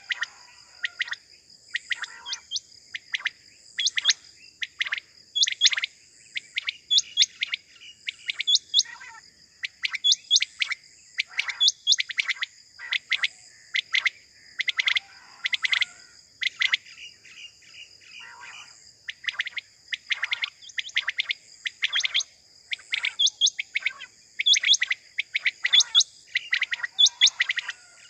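Quail calling over and over, many short sharp notes in quick groups, with a steady high-pitched insect drone behind them.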